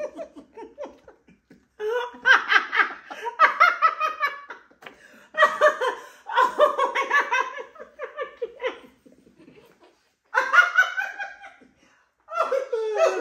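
Two people laughing hard, in several long fits of quick pulsing laughs with short breaks between them.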